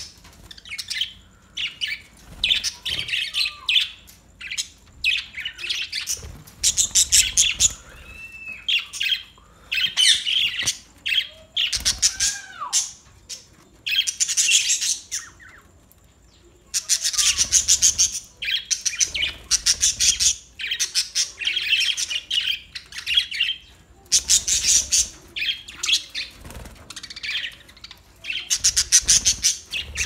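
A flock of budgerigars chattering: repeated bursts of fast, scratchy chirps and warbles with short pauses between them, and a few brief whistles.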